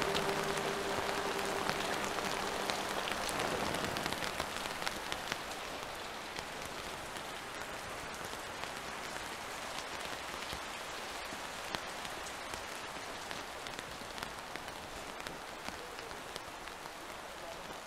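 Steady rain falling, with many individual drops ticking close by. A held music tone fades out about three seconds in.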